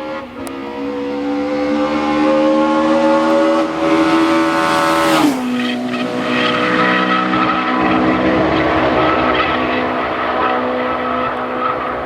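Rally car engine pulling hard, its pitch climbing steadily for about five seconds, then dropping sharply at a gear change or lift-off and running on at high revs.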